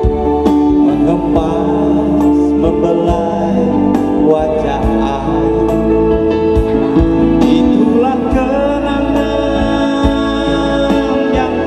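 A man singing a slow romantic Indonesian ballad into a handheld microphone over live instrumental backing, with long held notes.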